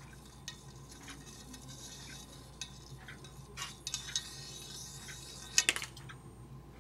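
Faint scattered clicks and small metallic ticks as a neodymium magnet slowly falls down inside a copper tube, slowed by its own induced currents, over a faint steady hum. A short cluster of louder clicks comes near the end.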